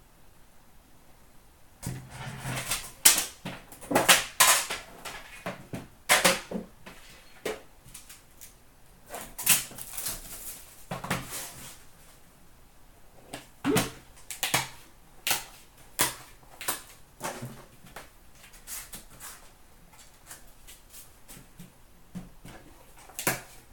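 Hands opening a hockey card box and handling its cardboard and cards on a glass counter: irregular clicks, taps and short rustles, starting about two seconds in.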